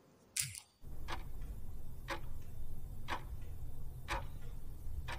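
Countdown-timer clock-tick sound effect: five sharp ticks, one each second, over a low steady hum. A short swish comes just before the first tick.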